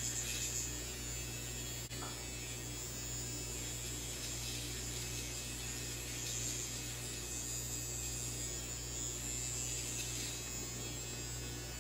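Finishing Touch Flawless facial hair remover, a small battery-powered rotary trimmer, running against the skin of the face: a steady quiet buzz with a thin high whine over it.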